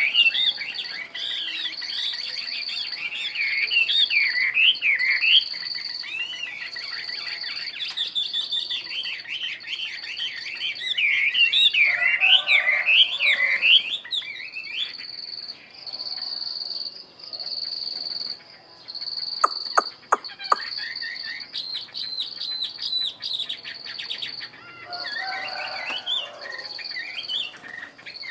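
Chinese hwamei singing: loud, varied whistled phrases with quick up-and-down slurs, coming in bouts with short gaps. A steady high insect-like drone runs underneath, and a quick run of sharp clicks comes about twenty seconds in.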